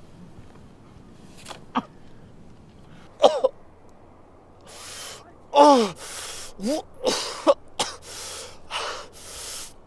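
A man gasping and groaning, as if in pain. A few short strained sounds come first; from about halfway there are quick heavy breaths, about two a second, and some of them break into groans that fall in pitch.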